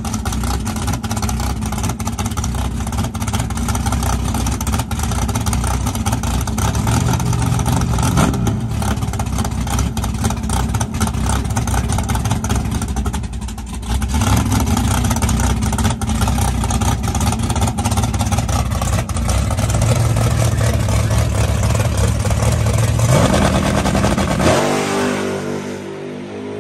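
Drag car's engine running loud at the starting line, revved and held at a steady pitch. About 23 seconds in it launches, the revs climbing sharply, then the sound fades as the car pulls away down the strip.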